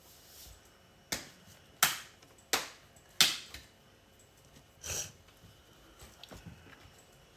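A handful of sharp taps or clicks of small hard objects: four in quick succession, roughly two-thirds of a second apart, then a softer one a couple of seconds later and a few faint clicks near the end.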